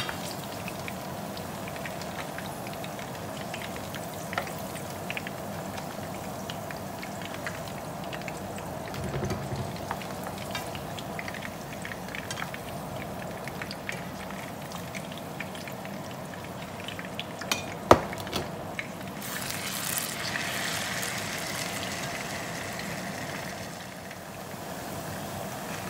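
Potato and carrot chunks frying in hot cooking oil in a pan: a steady crackling sizzle with small pops. A single sharp click comes about 18 seconds in, and the sizzle turns louder and brighter for a few seconds after it.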